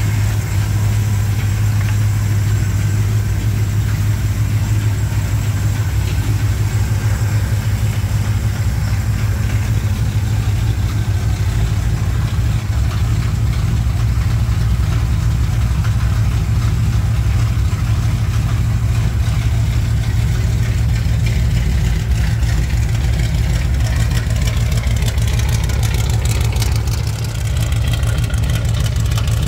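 1987 Chevrolet K10 pickup's engine idling steadily, running again after a head-gasket replacement.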